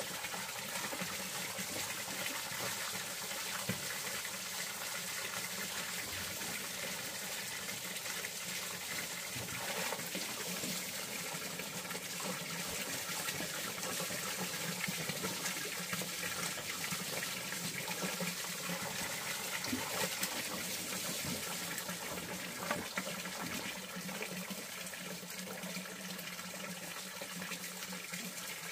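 Water running steadily, with a few light knocks.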